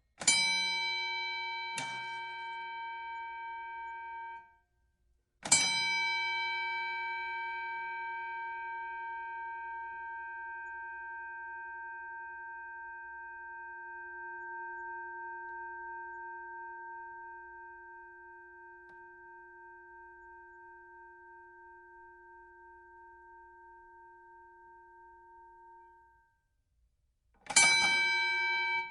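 Boxing ring bell struck with a metal clang. First comes a quick double strike that rings for a few seconds and is cut off. Then a single strike rings out and slowly fades over about twenty seconds, and a fresh strike comes near the end.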